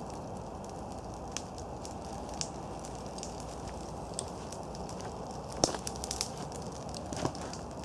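Newly lit campfire catching between two dry logs, birch bark and kindling burning: a steady hiss of flame with scattered crackles and pops, the loudest pop about five and a half seconds in and another near the end.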